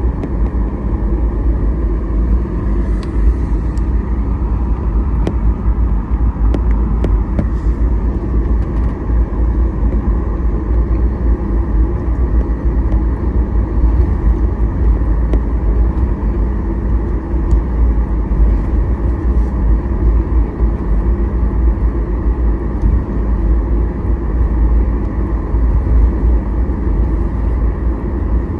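Steady cabin rumble inside a Boeing 737 MAX 8: engine and airflow noise heard from a window seat, loud and even, with the most weight in the deep low end.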